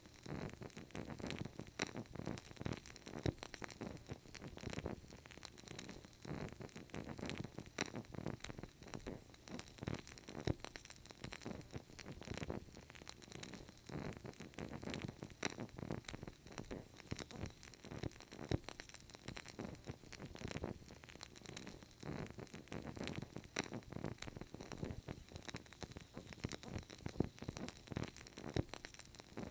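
Burning candle crackling: a dense, steady stream of soft irregular crackles and pops over a faint low rumble.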